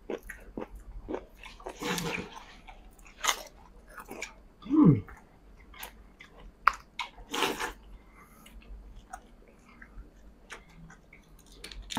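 Chewing and mouth smacking of people eating nasi Padang, rice and chicken, as fast as they can, with scattered wet clicks and bites. There is a short falling tone about five seconds in.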